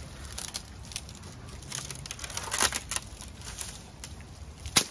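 Old double-walled polycarbonate greenhouse roof panel being pulled free of its metal frame and clips: irregular crackling, scraping and clicking as the brittle plastic flexes and rubs, with a sharp crack just before the end.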